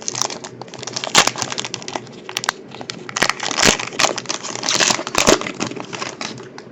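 A baseball card pack being torn open: crinkling and tearing wrapper with irregular sharp crackles.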